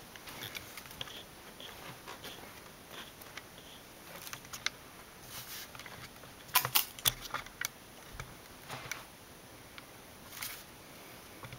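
Handling noise from a rifle-mounted camera being carried: scattered light clicks and rattles. A brief cluster of louder clicks comes about six and a half seconds in, and another near the end.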